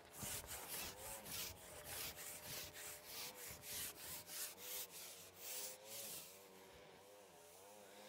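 Carbon fishing pole rubbing through the angler's hands as he pushes it out, about three even rubbing strokes a second for some six seconds, then stopping. A faint wavering motor hum runs underneath.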